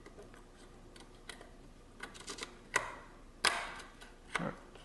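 Scattered small clicks and taps of a camera lens's metal rear mounting plate being worked back and forth by hand against the lens body while it is aligned with the aperture coupling. Three louder clicks come in the second half.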